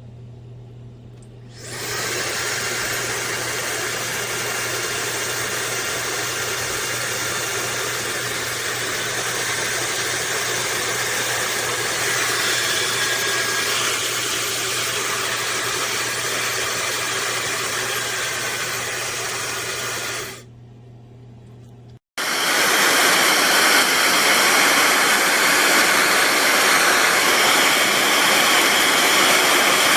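AINA high-speed ionic hair dryer blowing a steady rush of air. It comes up to full about a second and a half in and drops back about twenty seconds in. After a short break, a louder steady rush of air runs on.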